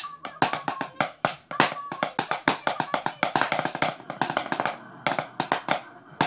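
Wooden drumsticks striking a thick book used as a practice surface, playing a fast, unbroken run of sharp, dry strokes with some louder accents.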